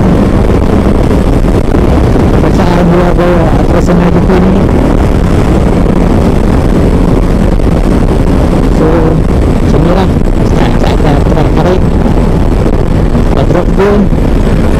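Yamaha Tracer 9 GT's 890 cc inline three-cylinder engine running steadily at cruising speed, under a loud, constant rush of wind over the microphone.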